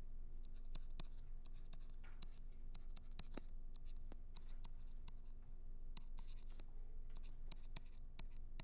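Stylus tapping and scratching on a tablet screen during handwriting: a string of short ticks and brief scratchy strokes over a low, steady hum.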